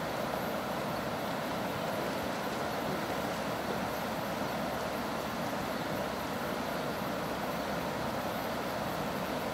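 River water flowing with a steady rush.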